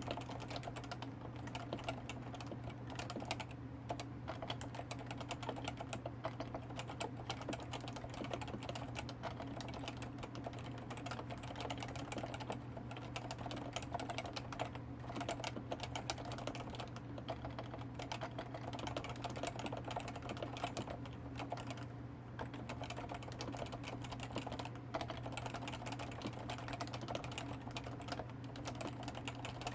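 Continuous typing on a Topre Realforce 104U keyboard, its 45 g electrostatic capacitive switches and ABS keycaps giving a dense, steady run of keystrokes with no pauses.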